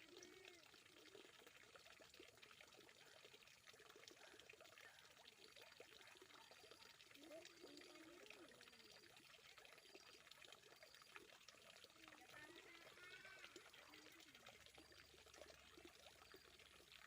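Faint, steady trickle of water pouring, with distant voices murmuring in the background.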